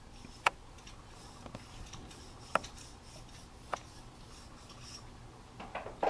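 A pileated woodpecker striking a tree trunk with single sharp knocks, three of them spaced one to two seconds apart, the first the loudest.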